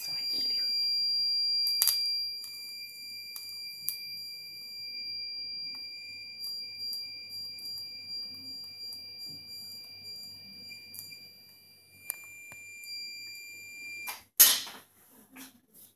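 A steady, high-pitched electronic tone like a buzzer, held without a break for about fourteen seconds and loudest in the first two seconds. It cuts off, and about half a second later comes a short, loud noise.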